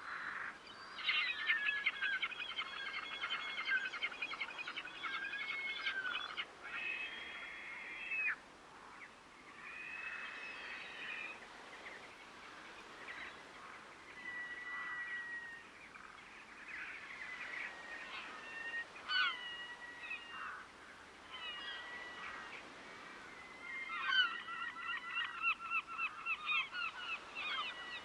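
A flock of geese honking in rapid, overlapping series of calls. The calling is densest in a long bout at the start and again near the end, with scattered single honks in between.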